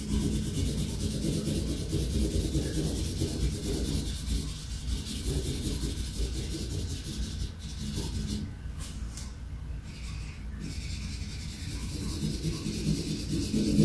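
Felt-tip marker scribbling back and forth on a large paper sheet, colouring in an area with steady rubbing strokes, broken by a few short pauses just past the middle.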